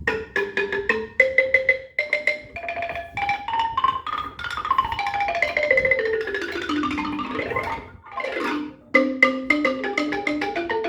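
Ugandan wooden xylophone (amadinda/embaire) played with beaters: quick repeated notes, then a run rising up the keys, then a long sweep down the keys. Fast repeating note patterns start again about nine seconds in.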